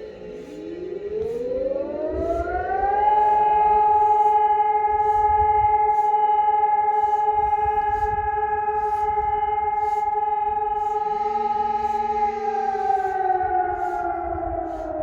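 Civil-defence warning siren sounding during a siren test: its tone rises in pitch over about three seconds, holds one steady note for roughly nine seconds, then begins to fall near the end.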